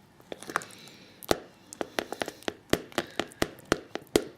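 A spoon clicking and tapping against a bowl while a thick aloe-gel and oil mixture is stirred: a few sparse clicks, then an irregular run of several a second from about a second in.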